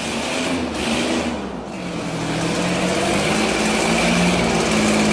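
V24 engine running and revving: the exhaust note dips briefly about a second and a half in, then climbs and holds strong.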